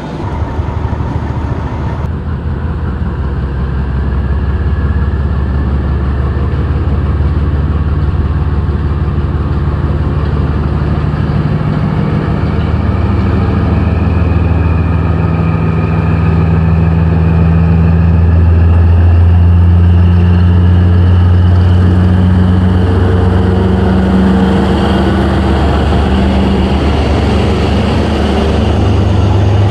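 Diesel locomotive engine running with a steady low throb that grows gradually louder, its pitch stepping up a little around the middle of the stretch.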